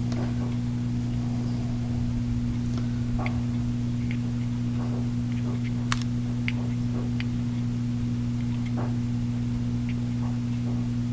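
Steady low electrical hum with a fainter overtone above it, mains hum typical of running aquarium equipment, with scattered faint clicks and ticks over it.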